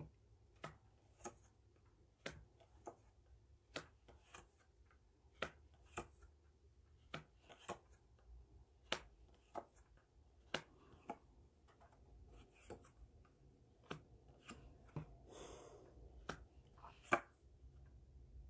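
A deck of Gypsy Witch oracle cards being handled and shuffled by hand: sharp, irregular clicks and taps of the cards against each other and the table, about one a second, often in pairs, with a brief rustle about two-thirds through.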